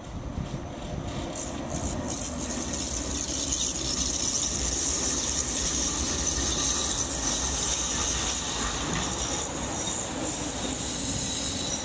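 Oslo tram rolling past on curved track, getting louder over the first few seconds as it comes close. A steady low rumble of the car on the rails carries a high, steady edge from the wheels on the curve.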